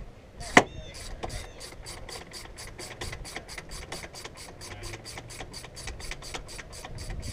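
Ratchet wrench clicking in a quick, even run of about five clicks a second as a bolt at the alternator is worked. A single sharp knock about half a second in is the loudest sound.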